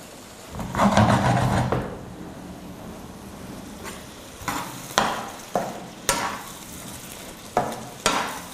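Potatoes and tomatoes in sauce sizzling in a black frying pan on an electric hob, with a louder rush about a second in. In the second half a spoon stirs the pan and knocks against it about seven times.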